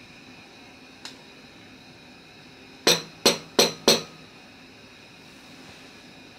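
A failed homemade bread roll, hard as stone, rapped against a hard surface: four sharp knocks in quick succession about three seconds in, after one lighter knock about a second in. The knocking shows how hard the bake came out.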